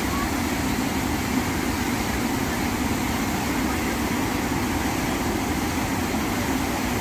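The Seti River's water rushing through its gorge: a steady, even noise with no let-up.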